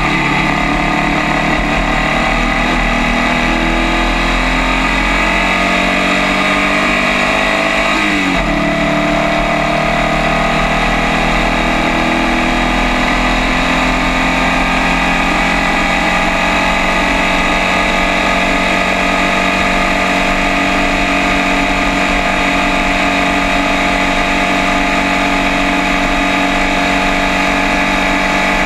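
Formula First race car's air-cooled Volkswagen flat-four engine under full throttle, heard from on the car: it revs up steadily out of a corner, drops in pitch with an upshift about eight seconds in, then pulls slowly higher in the new gear down the straight.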